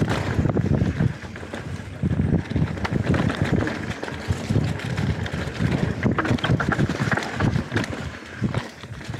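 Canyon Spectral 125 full-suspension mountain bike descending a dirt singletrack covered in dry leaves: wind buffeting the microphone over tyre noise, with frequent clicks and rattles from the bike over the bumps.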